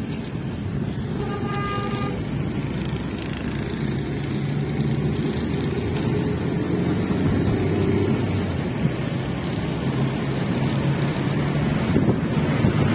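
Car engine and tyre noise heard from inside the cabin while driving, a steady low hum that grows a little louder from about four seconds in. A brief pitched tone sounds about a second and a half in.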